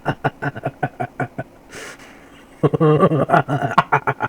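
Cartoon-style voice sound effects: a rapid run of choppy syllables with no clear words, then after a short pause a wavering, warbling voice.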